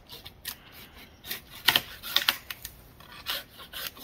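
Irregular sharp scrapes and cracks of wood as a climber works a limb high in a conifer with a hand pruning saw, the loudest two cracks about half a second apart near the middle.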